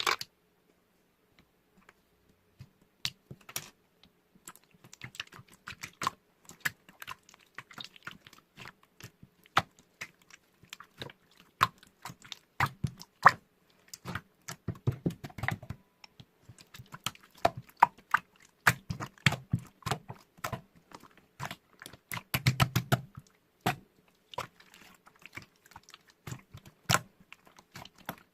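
Close-up irregular clicking and tapping, many sharp clicks at an uneven pace with short clusters of softer low thumps.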